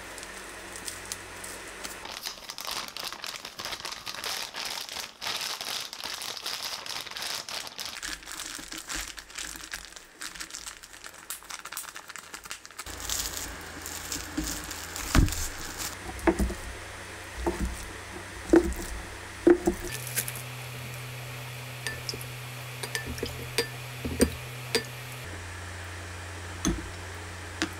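Plastic crinkling and rustling as food is handled in it. About halfway through, this gives way to a quiet hum with scattered sharp knocks and clinks of dishes and glassware set down on a counter.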